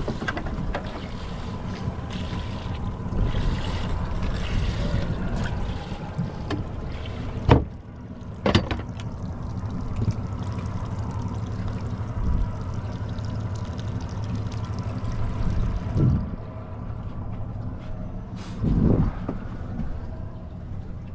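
Boat's outboard motor running steadily under wind and water noise, with two sharp knocks about a third of the way through.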